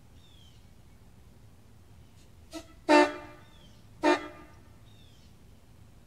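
Homemade PVC copy of a K5LA train horn, blown on 100 psi air. A brief toot about two and a half seconds in, then two short loud blasts about a second apart, each sounding several tones together.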